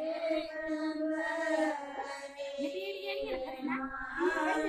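Women's voices singing a traditional wedding folk song without instruments, in long held, gliding notes.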